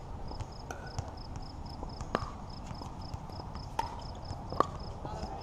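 Pickleball paddles striking a hard plastic ball during a rally: sharp hollow pops at uneven intervals, the loudest near the end.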